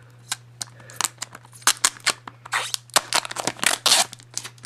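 Plastic shrink wrap being torn and pulled off a Blu-ray case by hand: a rapid run of crinkling and sharp crackles, busiest in the middle.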